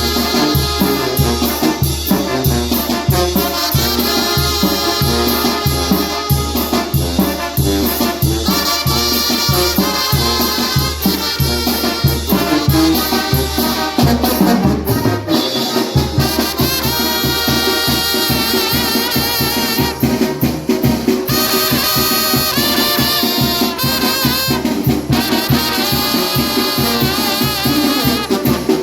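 Salsa-style Latin dance music led by a trumpet, over a steady bass beat. The bass drops out briefly about halfway through, then the trumpet plays long held notes.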